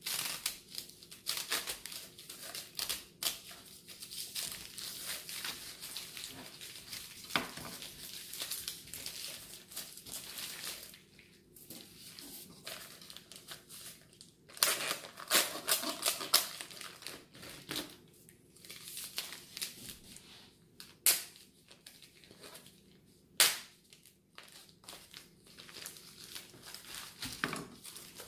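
Plastic wrapper and netting on a whole raw turkey crinkling and tearing as they are cut open with a knife and peeled off, in irregular crackles. Two sharp knocks stand out in the later part.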